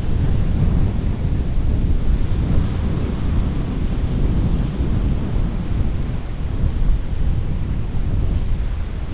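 Wind buffeting the microphone over lake waves washing against the shore.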